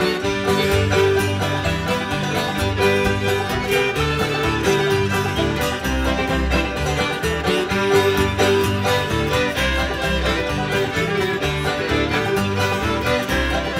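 Live acoustic string band, with fiddles, banjo and guitar, playing a lively dance tune with a steady beat.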